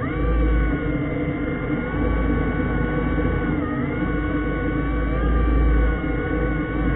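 Underwater ROV's electric thruster motors whining, the pitch jumping up as they spin up at the start, dipping briefly about three and a half seconds in and climbing again, over a deep rumble.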